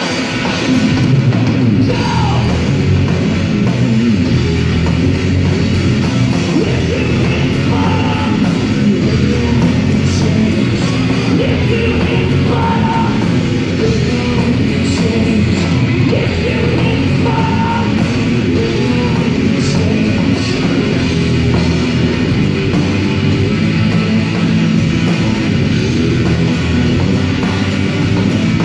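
A live heavy metal band playing loud, with distorted electric guitars and a drum kit, heard from the crowd in a large hall. The full band comes in louder about a second in and keeps up a dense, steady wall of sound.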